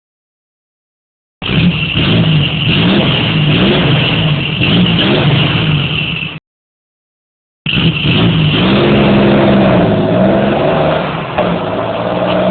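Jeep engine revving up and down repeatedly, loud, in two stretches of about five seconds each; each starts and cuts off abruptly with dead silence between them.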